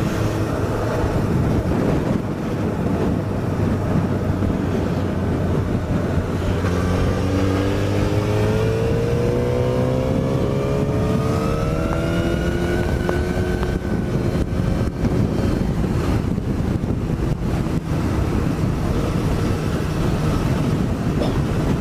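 Suzuki GSX-S1000's inline-four engine running under way with wind noise. About six seconds in, the engine note rises steadily for several seconds as the bike accelerates, then levels off.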